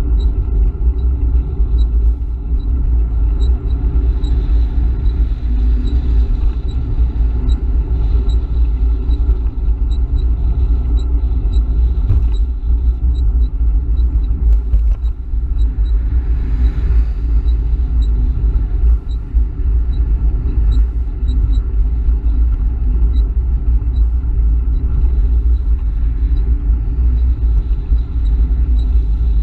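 Steady low rumble of wind and road vibration on a bicycle's handlebar-mounted camera riding along a highway shoulder, with the hiss of passing highway traffic that swells briefly a little past the middle. A faint regular ticking runs underneath.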